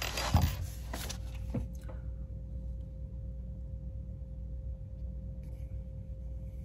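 A low steady background hum with a faint steady tone above it, and a few light clicks and rustles in the first two seconds.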